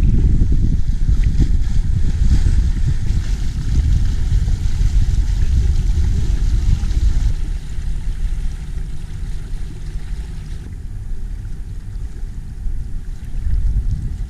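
Sailing yacht motoring on its engine, with a low rumble of wind on the microphone and water along the hull. After about seven seconds a steady engine hum comes through more plainly as the rush of wind eases.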